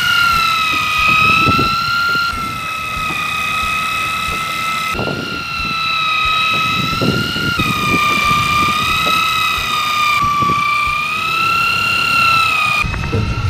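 Miya electric fishing reel's motor whining steadily as it spins the spool and winds in braided line, the pitch wavering slightly up and down. The whine breaks off abruptly and restarts several times, with light knocks and rumble underneath.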